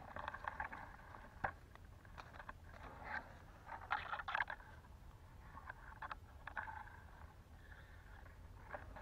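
Faint rustling and crunching of dry leaf litter and twigs as someone shifts about on the forest floor, with scattered scrapes and clicks over a steady low rumble.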